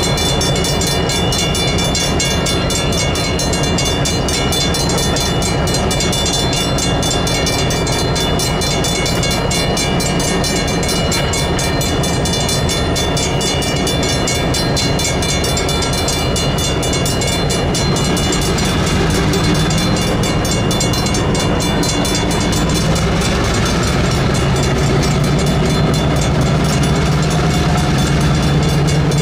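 Railroad crossing signal bells ringing steadily while a slow switching train moves through the crossing. A diesel locomotive's engine grows louder over the last third.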